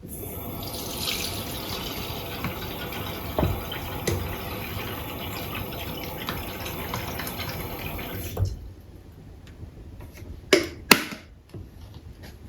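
Water running from a tap for about eight seconds, then shut off abruptly, followed by two sharp knocks.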